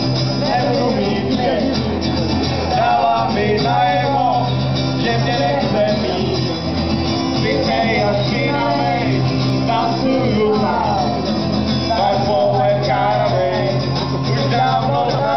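Live amplified music: two acoustic guitars strummed, with male voices singing into microphones over them.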